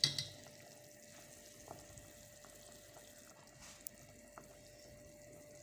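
Quiet kitchen background: a brief scrape or tap right at the start, then faint room tone with a steady thin hum and a few small clicks.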